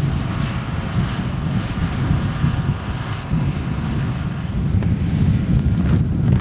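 Wind buffeting the microphone, a heavy uneven low rumble, over a faint steady machine hum.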